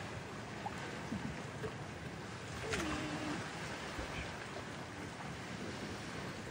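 Steady wash of sea water moving around the moorings, with wind, and one sharp click nearly three seconds in.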